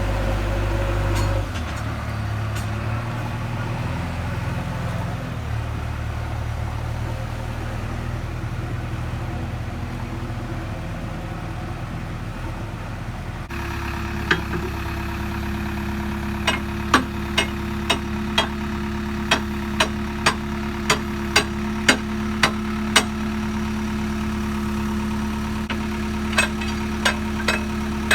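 JCB 3DX backhoe loader's diesel engine idling steadily. About halfway through, the engine sound changes abruptly and a series of sharp metal knocks, about two a second, joins it for several seconds, with a few more knocks near the end.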